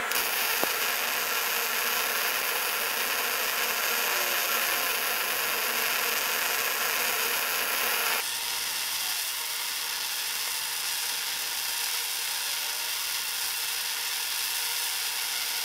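MIG welding arc running continuously as weld is laid on the worn shoulder of a lathe clutch shaft to build it up for re-turning. The arc noise is steady and even, dropping slightly in level about eight seconds in.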